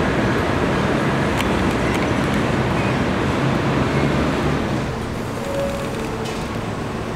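Steady rumble of an NYC subway train running on the elevated steel structure, dropping a little in level about five seconds in.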